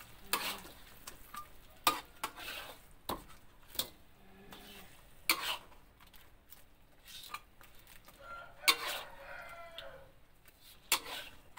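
Metal ladle clinking and scraping against a steel wok as sauce is spooned over fried fish, several sharp knocks at irregular intervals. A rooster crows in the background.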